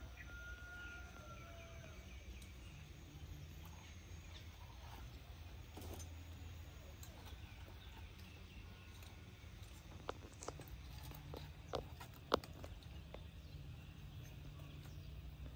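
Metal tongs clicking against a wire grill and the frogs on it over a charcoal clay stove: a few sharp clicks about ten to twelve seconds in, the last the loudest. A faint high chirp sounds near the start over a low steady rumble.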